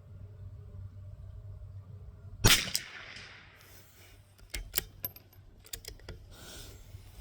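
.22 LR bolt-action rifle firing a single shot about two and a half seconds in, its crack trailing off in echo. A couple of seconds later comes a quick series of sharp metallic clicks as the bolt is worked.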